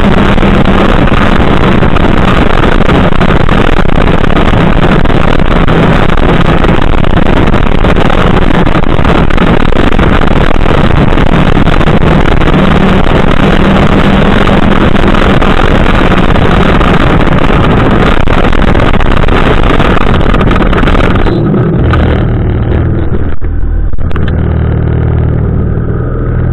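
Snowmobile engine running steadily at trail speed with a dense rush of noise, then easing off near the end to a lower, quieter run as the sled slows almost to a stop.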